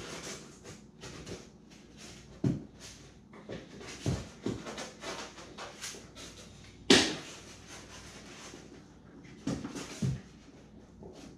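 Scattered clicks and knocks of clamps and wood being handled and fitted, over light rustling, with one louder knock about seven seconds in.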